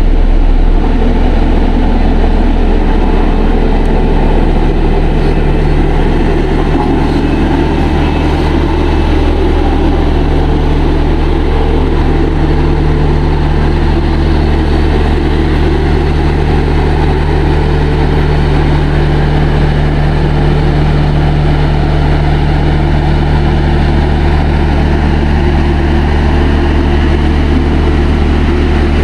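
Heavy construction machine's diesel engine running steadily at a constant speed, a loud, even low drone with no revving.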